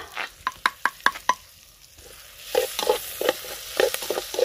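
A spoon stirring and scraping greens frying in a blackened metal pan. A quick run of sharp taps comes first. About two and a half seconds in, a steady sizzle starts under repeated scraping strokes of the spoon against the pan.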